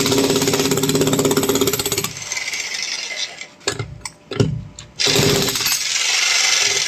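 Electric demolition hammer chiselling into a concrete floor slab: a fast, steady hammering with a motor hum. It stops about two seconds in, a few sharp knocks follow, and the hammering starts again about five seconds in.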